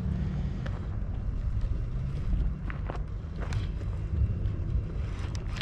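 Wind buffeting an outdoor microphone: a steady low rumble, with a few light clicks and taps scattered through it.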